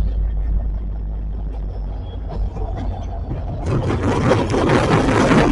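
Low, steady rumble of the departing train's diesel locomotive. About two-thirds of the way in, a sudden loud rushing noise cuts in over it and stays.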